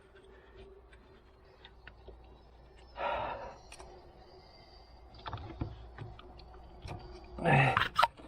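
Scattered clicks and knocks of hands and tools working on a car's strut and suspension parts, over a faint steady hum. There is a louder scraping burst about three seconds in and a loud strained burst near the end.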